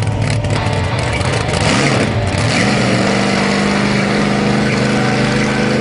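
Engine of a tube-chassis off-road buggy on giant tyres, running under throttle as it turns on dirt; its note climbs about two seconds in and then holds at high revs.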